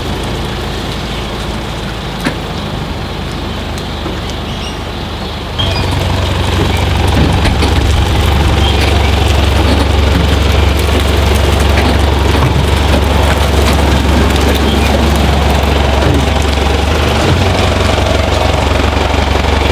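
Mitsubishi Pajero's engine running at a slow crawl as it tows a camper trailer forward at walking pace, with scattered light clicks. The engine sound gets suddenly louder and deeper about five and a half seconds in and stays so.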